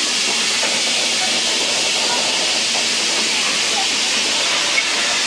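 Steady hiss of steam escaping from a British Railways green steam locomotive close by.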